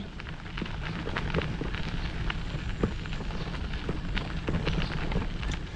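A bicycle riding along a packed dirt path: steady wind rumble on the microphone, with a scatter of small crackles and ticks from the tyres rolling over grit and the bike rattling.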